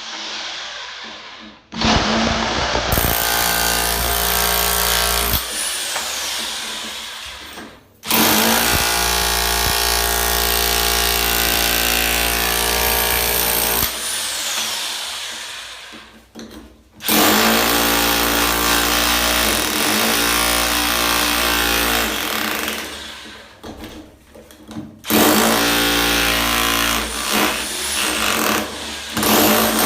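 INGCO RH10508 1050 W SDS-plus rotary hammer drill running in four bursts of several seconds each, starting abruptly and spinning down as the trigger is let go between runs.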